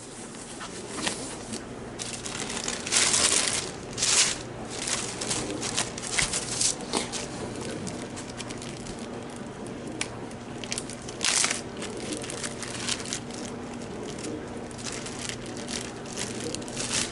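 Thin plastic crinkling and rustling in irregular bursts as it is handled, loudest about three and four seconds in and again around eleven seconds. A faint steady low hum lies underneath.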